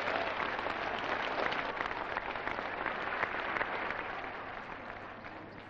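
A large crowd clapping, the applause dying away over the last couple of seconds.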